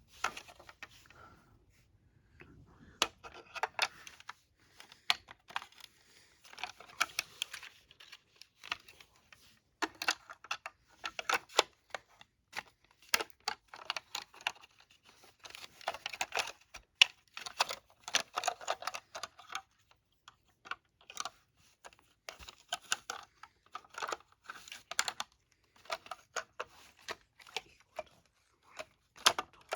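Irregular small plastic clicks, snaps and rattles of hands fitting batteries into a First Alert SA520 smoke alarm's battery compartment.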